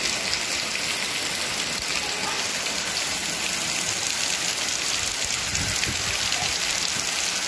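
Heavy rain pouring steadily and splashing onto paved tiles, a continuous even hiss.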